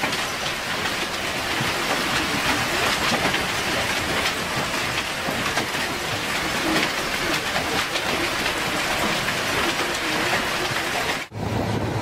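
Heavy hail pelting down on an above-ground pool and the lawn around it: a dense, steady clatter of countless hailstones striking water and ground. It cuts off suddenly near the end.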